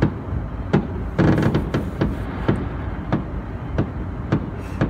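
Fireworks going off in a rapid series of bangs, about two or three a second, muffled as heard from inside a car. A longer, noisier burst comes a little over a second in.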